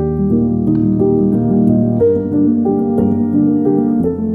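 Background piano music: a slow melody of held notes over a low sustained bass.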